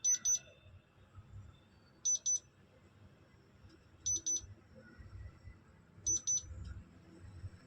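Whirlpool top-load washing machine's control-panel buzzer sounding an error alert: pairs of short, high beeps repeating about every two seconds, four times. It signals the TSC (touch short circuit) error, which comes from a shorted or stuck touch key on the control board.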